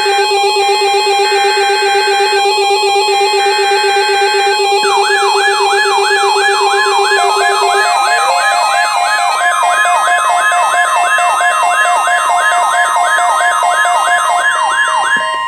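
NOAA Weather Radio weekly test signal with several weather radio receivers alarming at once. For the first five seconds steady alarm tones sound under three short bursts of SAME data tones. Then the steady 1050 Hz warning alarm tone plays along with a fast siren-like sweep from another radio, about three sweeps a second.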